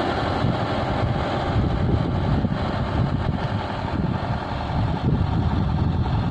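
Farm tractor's diesel engine running steadily under load as it pulls a bed-forming implement through the soil.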